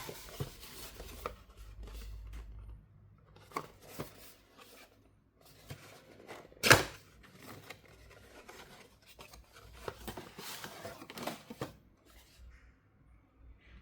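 Watch packaging being handled and opened by hand: rustling and scraping with scattered small clicks, and one sharp, louder snap about seven seconds in.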